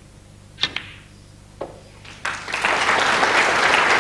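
Snooker cue tip striking the cue ball, then a second sharp click about a second later as the balls meet, followed by the audience in the hall breaking into applause for the shot, swelling up and carrying on loudly.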